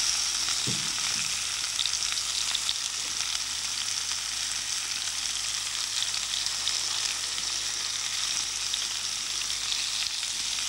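Leeks and turnips frying in browned butter and sugar in steel pans over high heat: a steady sizzle with fine crackles as the sugar begins to caramelise.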